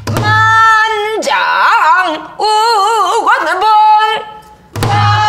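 A woman singing pansori in a strong, throaty voice with wide, wavering vibrato and pitch bends, holding out sung syllables. A few low strokes on a buk barrel drum mark the beat at the start and again near the end.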